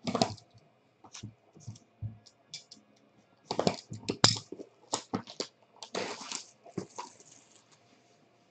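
Plastic shrink wrap being torn and peeled off a cardboard trading-card box: crackling crinkles and tears in irregular bursts, densest about three and a half to four and a half seconds in and again around six seconds.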